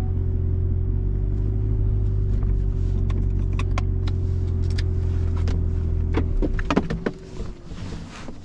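Car engine idling steadily, then switched off about six seconds in, with scattered light clicks and then louder knocks and rattles once it stops.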